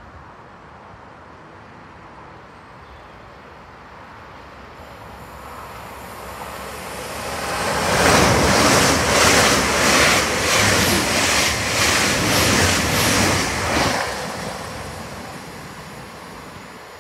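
A GWR Hitachi Intercity Express Train passing through at speed. Rushing wheel-on-rail noise builds over a few seconds, peaks for about six seconds with a regular pulsing beat, then fades as the train runs away.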